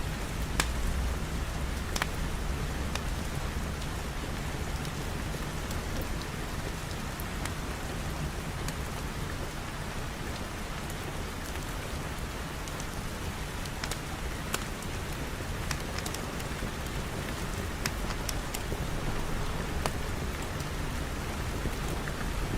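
Steady rain: an even hiss with scattered sharp ticks, over a low rumble.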